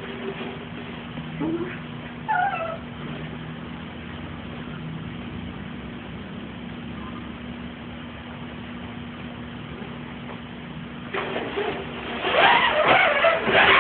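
A puppy gives a short whiny yelp that falls in pitch about two seconds in, over a steady low hum. From about eleven seconds in comes a busy patch of scuffling and clicking as it plays.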